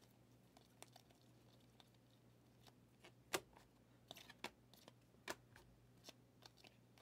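Faint, irregular clicks and ticks of glossy trading cards being slid one by one off the front of a hand-held stack and onto the back. The sharpest click comes about three seconds in, and a quick cluster follows about a second later.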